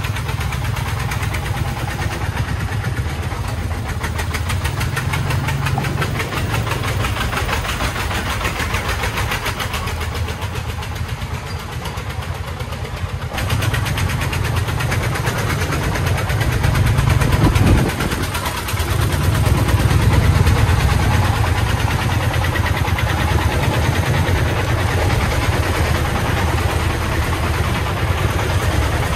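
Three-wheeled công nông truck's 40-horsepower diesel engine running steadily with a fast, even beat while hauling a load of sand, swelling louder about two-thirds of the way through.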